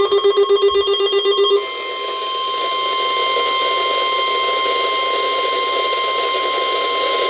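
NOAA Weather Radio alert: a short warbling, buzzy burst of digital header tones, then about a second and a half in the single steady 1050 Hz warning alarm tone starts and holds over radio hiss.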